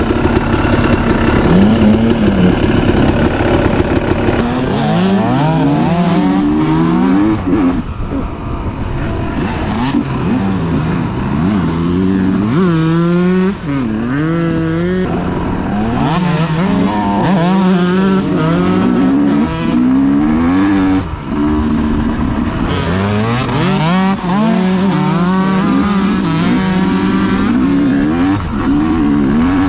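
Yamaha YZ two-stroke dirt bike engine running, fairly steady for the first few seconds, then revving up and down again and again as the throttle is opened and closed.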